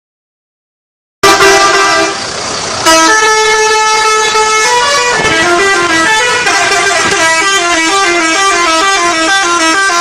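Dead silence for about the first second, then an Indonesian 'telolet' multi-tone bus horn sounds loud. From about three seconds in it plays a fast, repeating melody of alternating notes.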